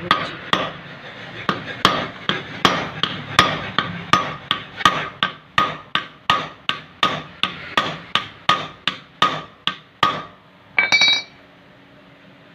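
A hammer strikes metal in a steady run, about three blows a second, each with a short ring, driving or peening the pins of a motorcycle clutch housing cover. The hammering stops about ten seconds in, followed by a brief high-pitched scrape.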